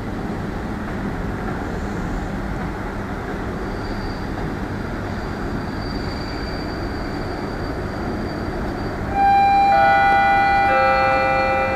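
Steady low rumble of a train standing at the platform, then about nine seconds in a station PA chime sounds: several ringing notes entering one after another and held, announcing a public-address message.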